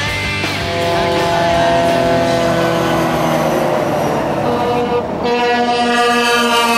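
Semi-truck air horn blowing two long blasts. The first lasts about four seconds and the second starts about five seconds in.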